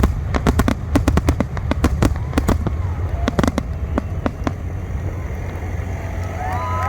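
Aerial fireworks going off in a rapid barrage of sharp cracks and bangs over a steady low rumble, thinning out after a few seconds. Near the end, people start cheering and whistling.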